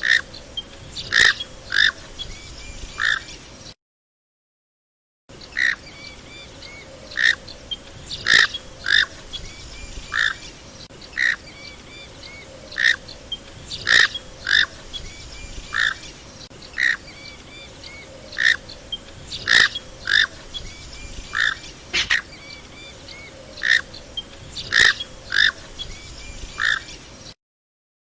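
Knob-billed duck (comb duck) calling: short, sharp calls repeated in loose series about once or twice a second over a faint steady background, broken by two brief gaps of silence.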